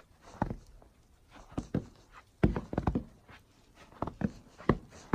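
Footsteps of boots on the snow-dusted wooden planks of a suspension footbridge: slow, uneven thuds, the heaviest about halfway through.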